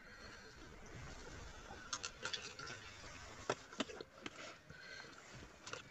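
Faint sounds of eating a packed lunch: about half a dozen sharp clicks and clinks of utensils and lunch containers over soft rustling.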